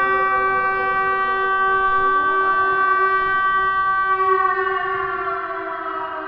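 Civil defense siren holding a steady multi-tone wail, then winding down: its pitch falls and it fades from about four and a half seconds in.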